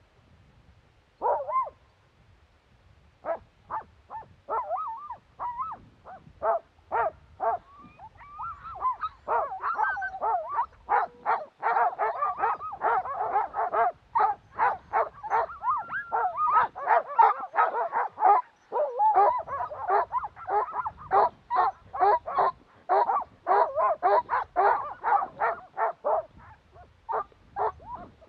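Sled dogs barking and yipping in quick, repeated calls. The calls are scattered at first and build to a near-continuous excited chorus from about ten seconds in, then thin out near the end.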